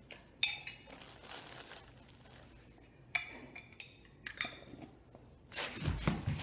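Small round metal tins clicking and knocking on a foam floor mat: a few separate knocks, then a louder run of thumps and clinks near the end as the tins are moved and set down by hand.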